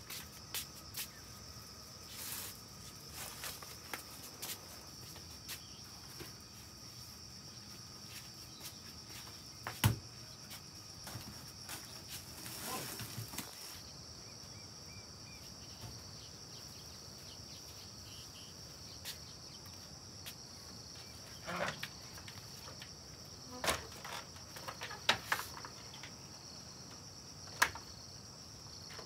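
Steady high-pitched insect chirring, with scattered clicks and knocks over it; the loudest is a single sharp knock about ten seconds in, and several more come in the last third.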